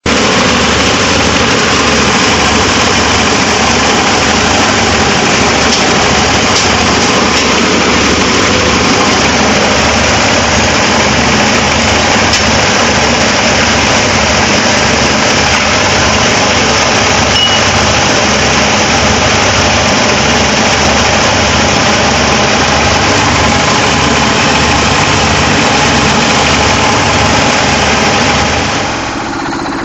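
Plastic shredder machine running loudly and steadily, with a low pulsing beat under the mechanical noise; the sound drops to a lower level near the end.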